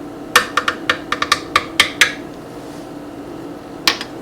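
Kitchen dishes and utensils being handled on a counter: a quick run of about ten light clicks and knocks, then one more near the end.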